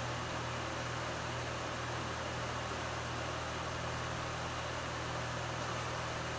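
Steady hum and hiss of a running desktop computer's cooling fan, with a low even hum underneath.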